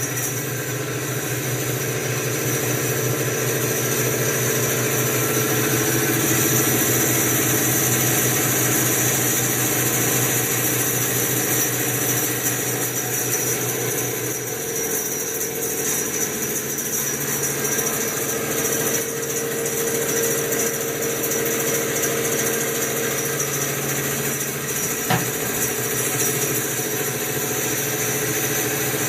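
A 17-inch bandsaw with a 1-inch resaw blade running free at full speed, a steady motor hum and blade whir with no cutting. The blade tension is set a little low, which makes it run noisier than it should.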